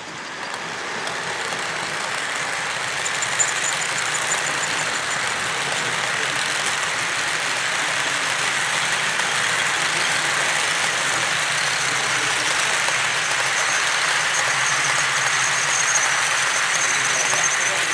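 Model train running on the layout track: a steady rushing noise that builds over the first couple of seconds and then holds.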